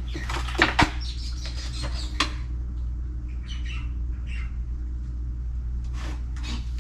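A few sharp knocks as objects on a desk are handled and moved, then a handful of short, faint high chirps, over a steady low hum.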